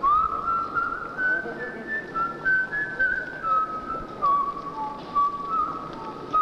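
A whistled tune played as the film's closing music: a single clear melody line stepping up and down in short phrases, over a quieter accompaniment.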